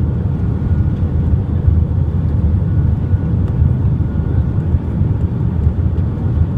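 Steady low rumble of airliner cabin noise inside an Airbus A320 coming in to land: engine and airflow noise with a faint steady whine over it.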